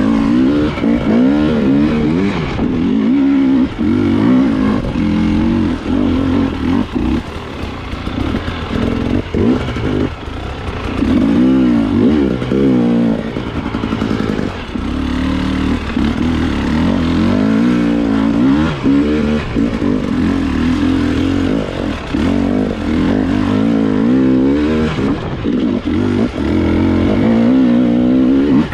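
Husqvarna TE 300 two-stroke enduro motorcycle engine revving up and down over and over as the throttle is opened and shut every second or two, with short drops in engine speed between bursts.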